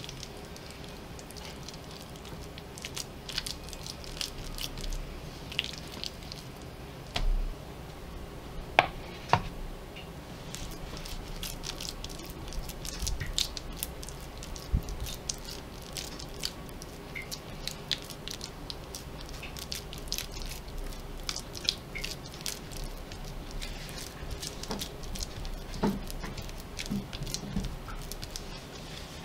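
Hands working a coil of oiled dough and pressing it flat on a wooden cutting board: soft squishes with scattered light clicks and taps, over a steady low hum. A couple of sharper taps come about nine seconds in.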